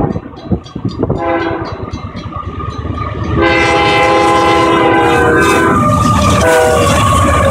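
Canadian Pacific freight locomotives blowing a multi-note air horn over the rumble of the train. The horn comes in faintly about a second in and turns loud and steady at about three and a half seconds, its notes shifting as the locomotives pass.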